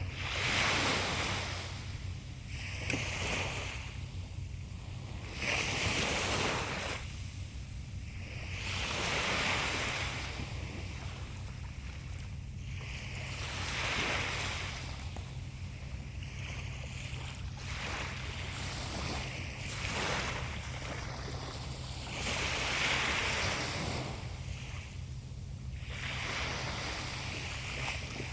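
Sea waves breaking and washing in, a surge of hiss every three to five seconds.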